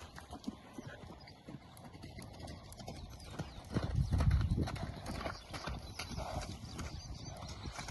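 Horses' hoofbeats clip-clopping as they move around loose, with a louder low rumble about halfway through.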